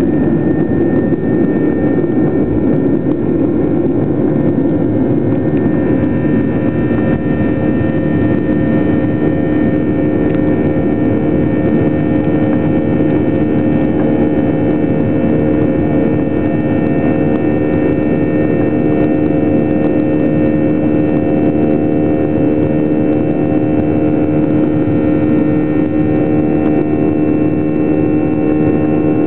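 Boeing 737-800's CFM56-7B turbofan engines at takeoff thrust, heard from inside the cabin over the wing: a loud, steady roar with a drone of steady engine tones. Rougher runway noise in the first few seconds fades as the wheels leave the ground, leaving the smoother climb-thrust drone.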